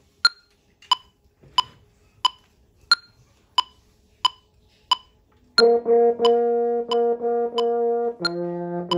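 A metronome clicking steadily at 90 beats a minute, joined about halfway through by a French horn holding a long B-flat, which steps down to a lower note near the end.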